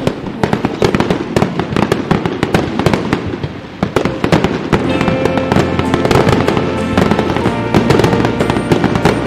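Firecrackers and fireworks crackling and popping in a dense, rapid run of bangs. Background music comes in about five seconds in, under the popping.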